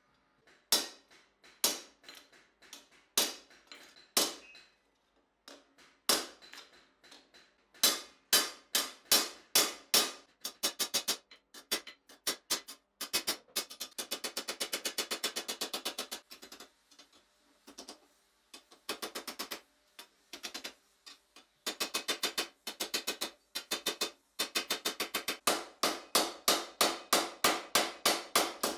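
Hand hammer striking red-hot steel on a round steel bar stake, each blow ringing sharply. Single spaced blows at first, then quick runs of lighter strikes, several a second.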